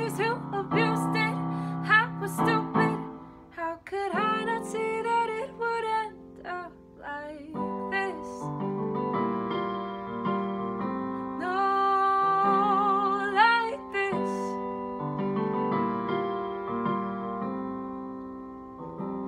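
A woman singing with piano accompaniment. Her voice carries sung phrases through roughly the first seven seconds and comes back with a long, wavering held note about twelve seconds in. The piano plays on mostly alone near the end.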